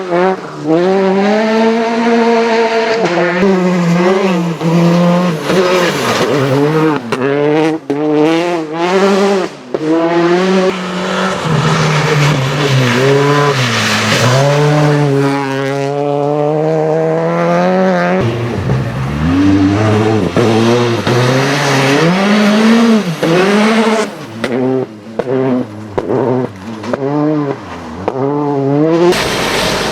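Rally car engines revving hard, the pitch climbing and dropping over and over as the cars accelerate, change gear and lift off. Near the end comes a fast run of short throttle rises and drops.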